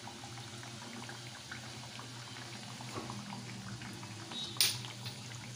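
Oil gently bubbling and crackling as sweet flour-and-coconut patties (meethi tikiya) deep-fry in a kadai on a low flame. A metal slotted spoon turns them, with one sharp clink against the pan late on.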